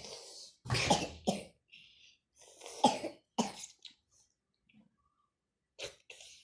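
A person coughing, in two quick pairs of coughs and then a single one near the end.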